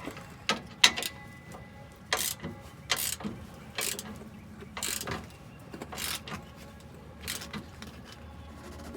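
Hand ratchet wrench clicking in short strokes, roughly one a second, as the upper mounting bolt of a rear strut is tightened.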